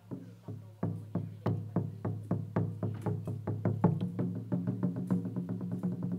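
Cambodian pinpeat ensemble fight music: evenly spaced drum strokes that begin about a second in and steadily quicken, over a steady low tone.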